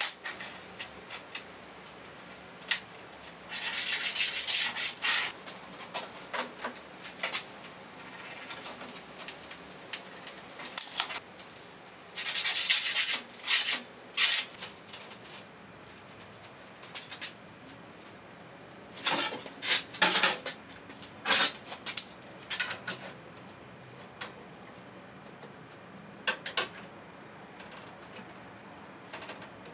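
A pen being drawn along a metal straightedge on a rusty steel sheet while lines are marked out: three stretches of rubbing, each a second or two long, with scattered clicks and clinks of the straightedge, square and tape measure being handled on the sheet.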